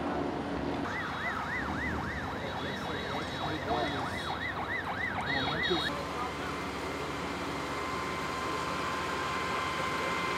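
Emergency vehicle siren wailing in quick rising-and-falling sweeps, about three a second, which stops abruptly about six seconds in, leaving a steady hum.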